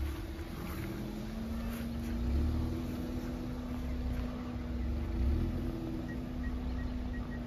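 Hyundai i20 hatchback reversing slowly, its engine giving a steady hum with a faint whine that rises a little and then holds, over a low rumble. Near the end a quick run of high beeps starts: the rear parking sensor warning that the car is close to something behind it.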